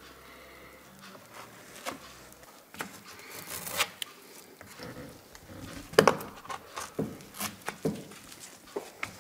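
A hard PVC foam wing rib being worked by hand in its template. It starts quiet, then from about three seconds in come scraping rubs and a run of knocks and taps, the loudest a sharp knock about six seconds in.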